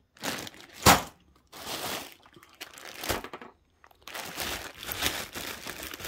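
Clear plastic parts bags full of loose plastic wiring-connector housings being squeezed and turned over, crinkling in bursts. There is a sharp crackle about a second in and another about three seconds in, then steadier crinkling through the second half.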